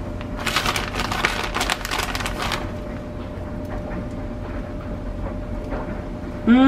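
Crinkly rustling of a plastic bag of shredded mozzarella for about two seconds as a hand reaches in for a handful, then only a faint steady hum.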